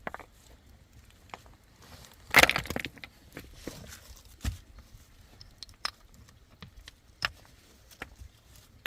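Scattered sharp knocks and clicks, with a loud crunching crackle lasting about half a second, roughly two and a half seconds in.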